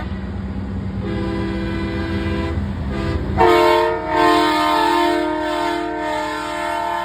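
Semi truck's air horn blowing a chord of several steady tones over a diesel engine's low rumble. A fainter blast comes about a second in, then a much louder held blast starts suddenly about halfway through, breaks briefly once and keeps sounding to the end.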